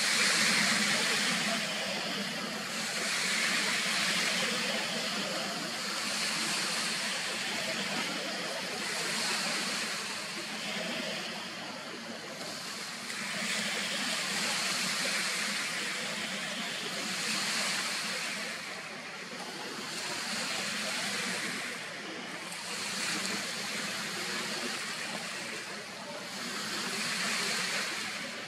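Waves washing on a shore: a rushing noise that swells and fades every few seconds.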